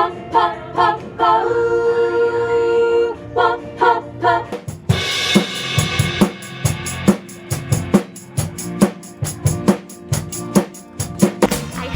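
Music: held chords punctuated by accented hits, then from about five seconds in a drum kit takes over with snare, bass drum and cymbal strikes that come faster toward the end, building up.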